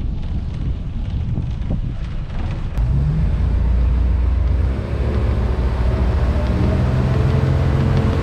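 Boat motor running, growing louder and deeper about three seconds in as it throttles up and the boat gets under way, with wind on the microphone.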